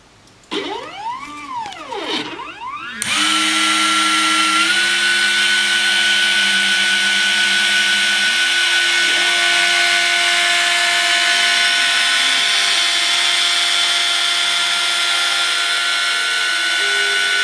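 Desktop CNC mill working a plastic plate. First its stepper motors move the axes with a whine that rises and falls in pitch. About three seconds in, the rotary-tool spindle switches on suddenly and runs with a high steady whine while the bit mills the plastic, and the stepper tones underneath change pitch in steps.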